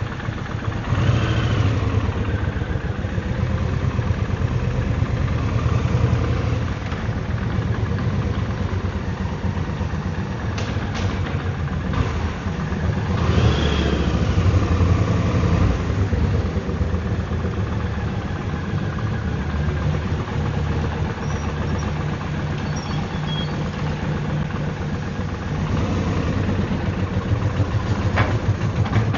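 Kawasaki VN 1500 Drifter's V-twin engine running as the motorcycle rides off. The revs rise about a second in and again around thirteen seconds, with steady riding in between.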